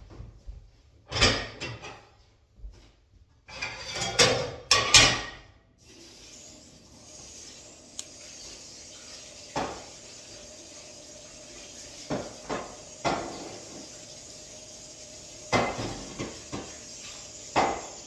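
Kitchen clatter: dishes, utensils and drawers knocking and clanking as things are set out on a counter, busiest in the first six seconds and then as single knocks. About six seconds in, a steady hiss with a faint hum starts and carries on underneath.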